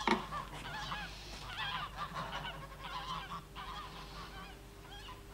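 Geese honking, a run of short, wavering calls coming in quick clusters.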